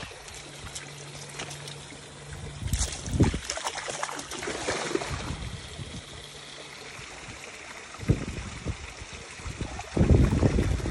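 Shallow stream trickling over stones, with a dog splashing as it wades through the water, loudest about three seconds in and again near the end.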